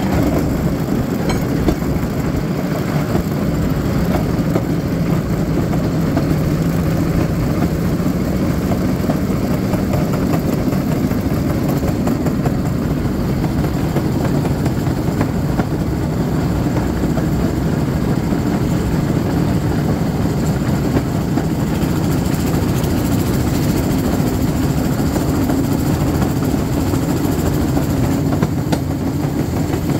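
Small engine of a motorised railcart (speeder) running steadily while the cart rolls along the rails, with the steady noise of its wheels on the track.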